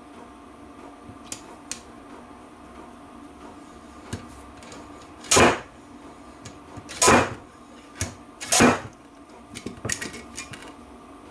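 A slide hammer pulling the pinion oil seal from a Land Rover Freelander 2 rear differential casing: its sliding weight slams against the stop in three heavy metallic blows, about five, seven and eight and a half seconds in. Lighter clicks and taps of the tool come between the blows.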